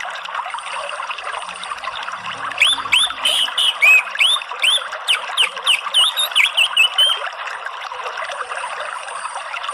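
Water trickling steadily, with an orange-headed thrush singing a fast run of varied whistled notes from about three seconds in until about seven seconds.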